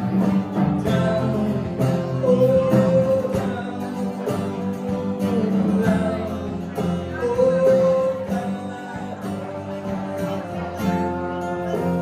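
Live band music: two acoustic guitars, electric bass and drum kit playing together, with a lead melody line sung at the microphone.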